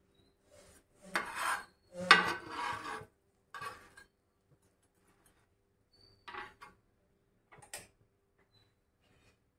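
Stainless steel spatula scraping across a flat non-stick tawa as it pushes and slides toasted sandwiches. The scraping comes in several short strokes, the loudest about two seconds in, with a brief sharp tap near the end.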